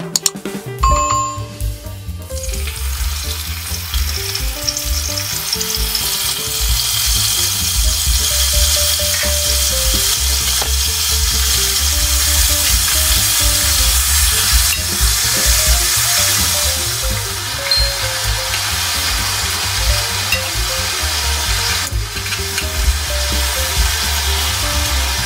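Raw chicken drumsticks and thighs sizzling hard as they brown in hot oil in an enamelled cast-iron pot, with the pieces turned over with metal tongs. A short chime sounds about a second in, just before the sizzle starts.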